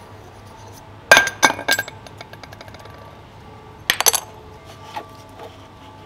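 Metal parts of a dismantled refrigerator compressor clinking against each other and the housing as they are handled: a quick cluster of sharp clinks with brief ringing about a second in, and another just before the four-second mark.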